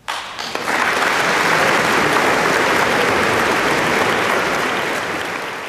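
Concert audience breaking into applause at the end of the piece: it starts suddenly out of near silence, swells to full clapping within about a second, and begins to fade near the end.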